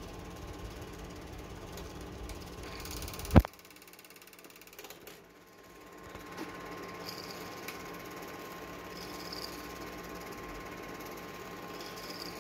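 Film projector running with a steady mechanical rattle and a thin steady hum. A sharp loud click comes about three and a half seconds in; the rattle then drops away for a couple of seconds before coming back.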